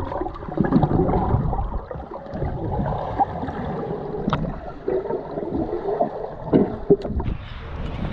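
Pool water sloshing and gurgling close by, with a few small splashes.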